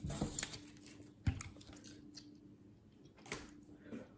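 Light clicks and knocks of plastic cups and dishes being handled and set down on a table, with one sharper knock about a second in, over a faint steady hum.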